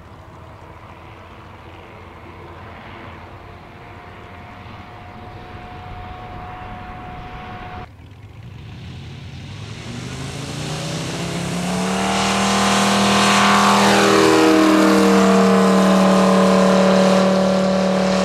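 Model airplane engine running. Its fainter, slowly rising hum breaks off about eight seconds in; the engine then climbs in pitch over about four seconds to a loud, steady full-throttle note that holds to the end.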